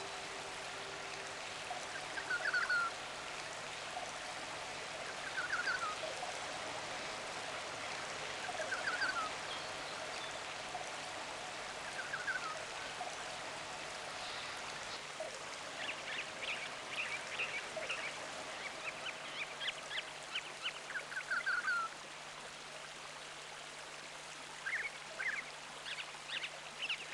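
Steady rushing of stream water with a short bird call repeating about every three seconds. About halfway through come clusters of quicker, higher chirping. It is a nature-sounds soundtrack.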